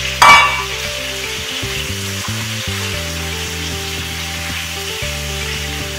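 Lamb sizzling as it sears and browns in hot oil in a wok, a steady hiss. A single loud clank comes about a third of a second in.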